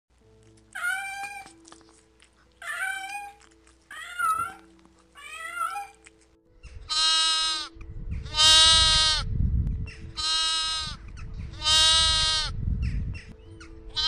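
A cat meowing four times in short calls that bend in pitch, then a lamb bleating four times in longer, louder, steady calls. Faint background music runs underneath, with a low rumble behind the bleats.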